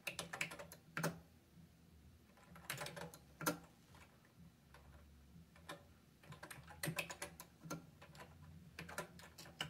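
Keys clicking on a Commodore Plus/4's keyboard, typed in short runs with pauses between.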